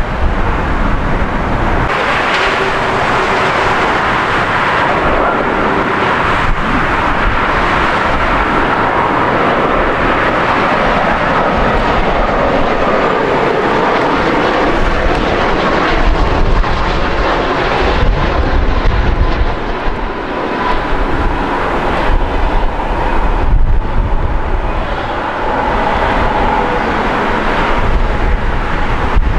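Jet airliner engines on landing and approach: a steady, loud rushing roar with a faint high whine that slowly falls in pitch.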